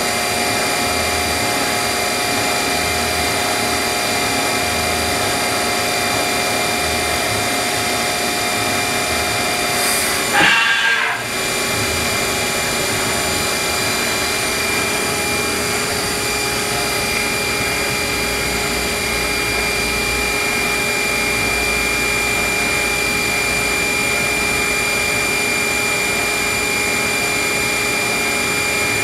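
Haas VF-9 vertical machining center running: a steady mechanical whine made of several steady tones over a hiss. About ten seconds in there is a brief surge followed by a short dip, after which it settles back to the same steady running.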